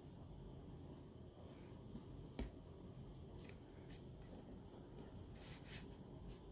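Faint rustling and light clicks of cardstock as fingertips press die-cut paper pieces down onto a card, with one sharper click about two and a half seconds in.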